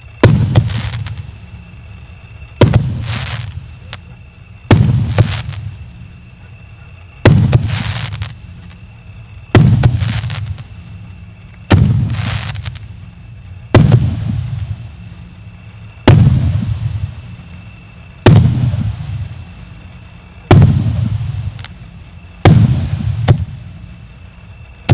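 Firework cake (a multi-shot salute battery) firing: loud booms about every two seconds, each trailing off in a low rumble with smaller crackling pops in between.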